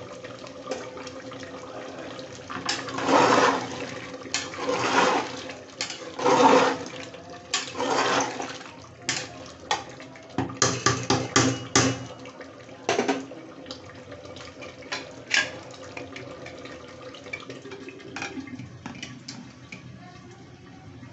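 Mutton curry gravy bubbling in an open aluminium pressure cooker while a ladle stirs and sloshes through it in several swells. Then come quick metal clinks and knocks of the ladle against the cooker, with a few more knocks later as the pot is handled.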